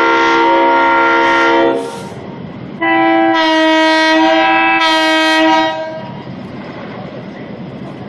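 Air horns of vintage EMD E- and F-unit diesel locomotives sounding two long multi-note chords. The first ends about two seconds in, followed by a short hiss of air, and the second runs from about three to six seconds in. After that, diesel engines keep running with a steady rumble.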